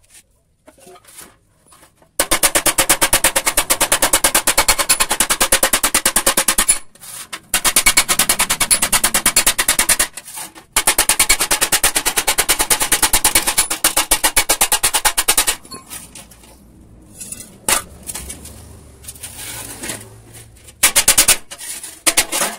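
A hand-held power tool working along the edge of a steel sheet: a rapid, even clatter in three long runs with short breaks between, followed by a few shorter bursts and knocks near the end.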